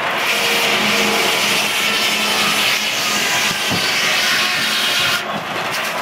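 Large circular sawmill blade cutting through a log, a loud, steady sawing noise that stops about five seconds in as the cut ends.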